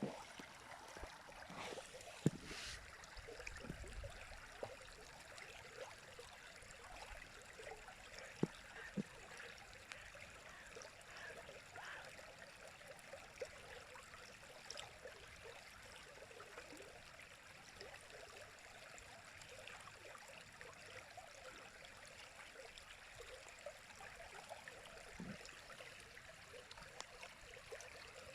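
River water running steadily, a quiet rushing babble with a few sharper splashes and plops here and there.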